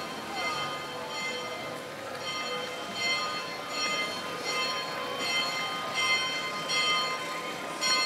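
Church bells ringing in quick, slightly uneven strokes, a bit more than one a second, each stroke a bright clang whose tones hang on between strikes, over the hubbub of a walking crowd.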